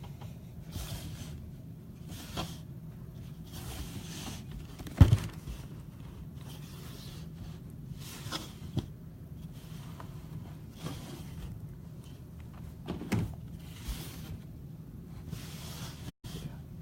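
Steady low hum with soft, repeated rustling, and one sharp knock about five seconds in.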